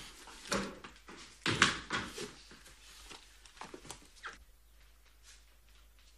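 A scuffle: a handful of short rustling and knocking noises of men grabbing and holding someone, the loudest about a second and a half in, dying down after about four seconds.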